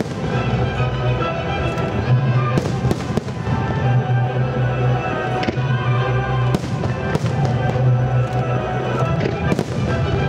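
Aerial fireworks shells bursting with sharp bangs at irregular intervals, several close together, over loud accompanying music.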